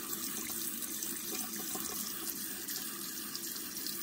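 Kitchen sink tap running steadily, its thin stream splashing into a bowl of boiled chicken feet being rinsed.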